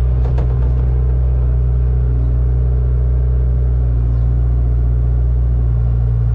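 Engine of a heavy earth-moving machine running with a steady, loud low drone.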